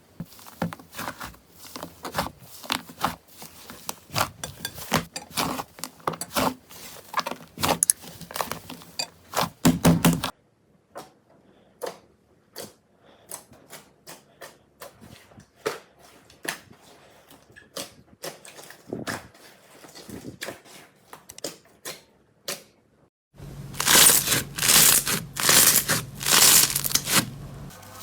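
Slime being squeezed and poked by hand, giving a fast run of crackling clicks and pops. They thin out to scattered pops about ten seconds in, then come back louder and denser for the last few seconds.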